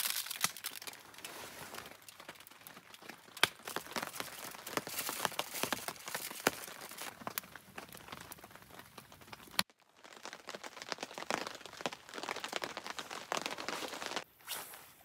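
Aluminium foil crinkling and crackling in dense small clicks as a seasoned trout is wrapped in it, then a wood campfire crackling. The sound cuts out abruptly about ten seconds in, the crackling starts again, and it drops away near the end.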